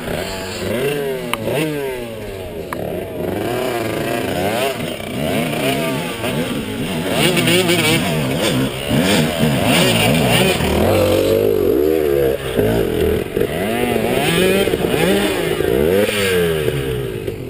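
Dirt bike engines revving up and down under load on a steep dirt hill climb, the pitch rising and falling again and again, louder from about seven seconds in.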